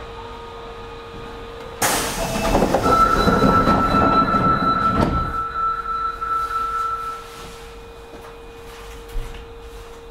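Sliding doors of an Osaka Metro 25 series subway car closing before departure: a sudden loud rush about two seconds in that lasts about three seconds, with a steady high tone sounding over it for about four seconds. A single click comes near the end over a faint steady hum.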